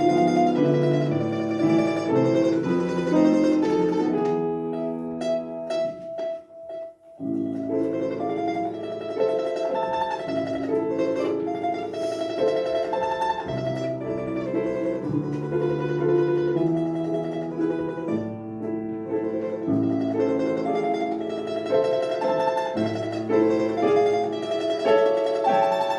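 Instrumental recital music: a melody on a plucked string instrument over a lower accompaniment. It breaks off briefly about six seconds in, then resumes.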